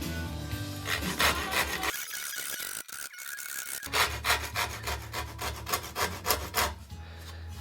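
Microplane rasp scraping across the wood of a paddle blade in quick back-and-forth strokes, about two a second, pausing briefly in the middle. It is taking off a lot of wood roughly and leaving a rough surface.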